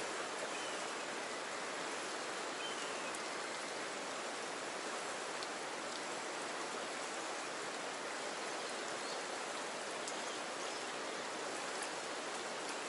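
Fast-flowing river current rushing steadily, a constant even hiss of moving water: the current is running strong.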